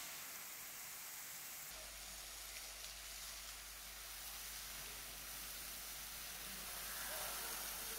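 Steady hissing and sizzling of the water jet from a Magirus Wolf R1 firefighting robot's monitor striking smouldering hot debris, raising steam. A low steady hum comes in about two seconds in.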